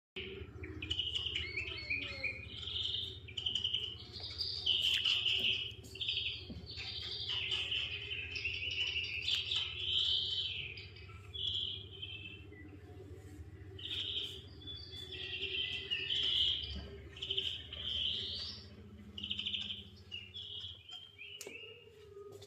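Birds chirping and singing: a dense run of short chirps and trills, over a steady low hum.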